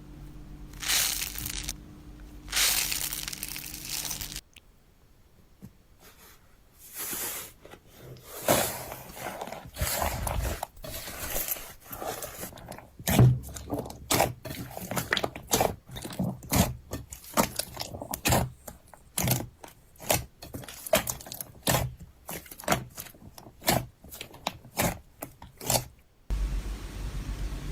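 Slime being handled by hand, ASMR-style. First come a few long scraping squishes, then a quick run of sharp crunchy crackles and pops, several a second, which stops suddenly near the end.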